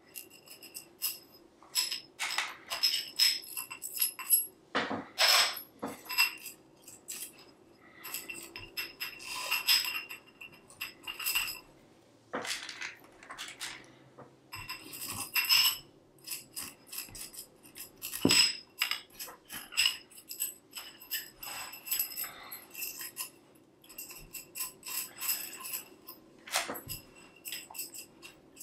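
A tensegrity structure being taken apart: its struts clink and knock together, and the tendon joints click and rattle as they are worked free. The knocks come irregularly, and some of them ring briefly.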